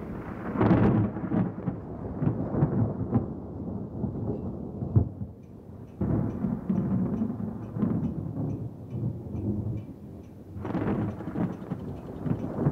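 Thunder rumbling, with sharp peals breaking out about half a second in, at about six seconds and again near the end, each crackling and then rolling away.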